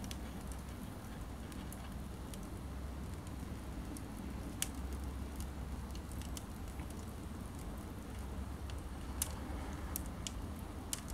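Wood fire burning in a stove, its thin branches crackling with irregular sharp pops over a low steady rumble. The two loudest pops come about five and nine seconds in.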